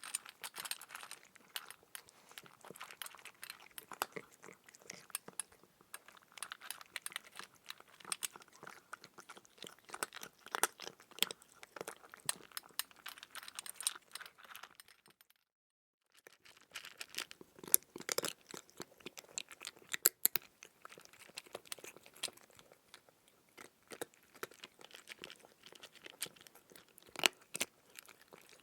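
Chewing crunchy food: a dense, irregular stream of crisp crunches and cracks. A second of dead silence a little past halfway breaks it before it resumes.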